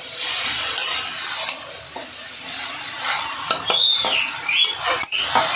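Metal spatula stirring and scraping chopped sponge gourd (nenua) in a metal kadhai, with a light sizzle of the frying vegetables and clinks of the spatula against the pan. There are a few short high squeaks in the last two seconds.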